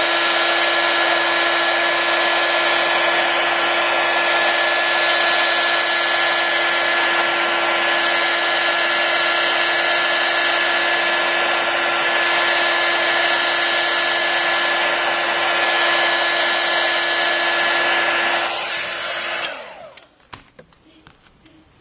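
Hot-air blower running steadily with a fan-motor whine, heating the iPad's glass to soften the adhesive; it switches off about 19 seconds in, leaving a few faint clicks.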